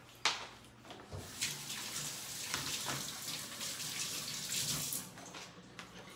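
Kitchen faucet running while hands are washed under it: a steady rush of water that lasts about four seconds, starting about a second in.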